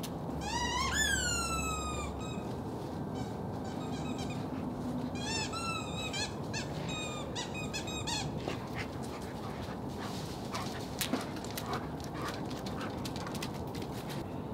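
A run of high-pitched squeaks: a long one near the start that rises and then falls in pitch, followed by clusters of short squeaks a few seconds later.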